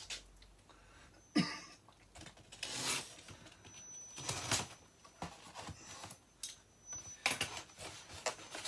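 Cardboard delivery box being opened by hand: packing tape worked loose and cardboard scraping and rustling, with scattered clicks and knocks. Near the end the box is shifted and lifted off the pile.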